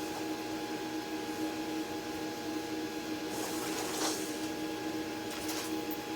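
Steady hum of a cutting machine running, with a couple of brief soft rustles about three to four seconds in and near the end.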